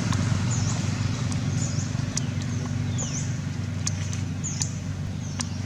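Outdoor ambience: a steady low rumble with a short high chirp repeating about once every second or so, and scattered sharp clicks.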